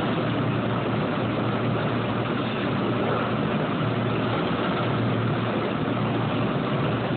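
Steady machine noise: an even rushing hum with a stronger low note, unchanging throughout.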